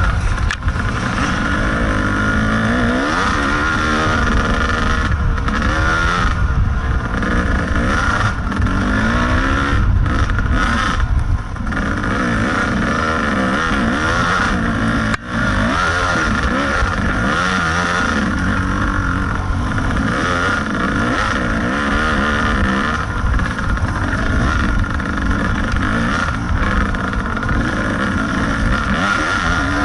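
Kawasaki KDX 220 two-stroke single-cylinder dirt bike engine, heard up close from the bike, revving up and down continuously as it is ridden over a rough trail. The engine sound breaks briefly about halfway through.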